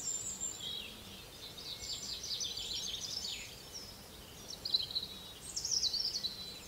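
Songbirds singing, a dense run of quick high chirps and trills that grows busiest near the end.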